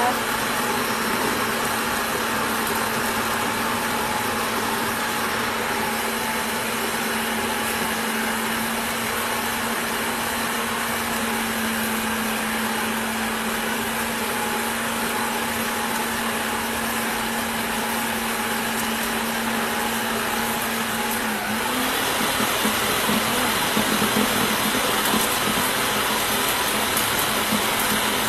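Idealife electric food processor (chopper) motor running steadily, grinding raw beef with coarse salt and garlic into smooth, binding bakso paste. About three-quarters of the way through, its steady hum gives way to a wavering tone and it gets a little louder.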